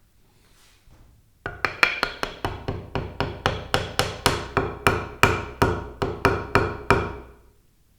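A hammer tapping in a quick, even run of about twenty strikes, three to four a second, each with a short ring, starting about a second and a half in and stopping about a second before the end.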